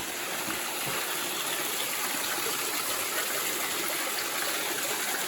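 Spring water flowing steadily from the Three Sisters Springs, an even rushing trickle of running water.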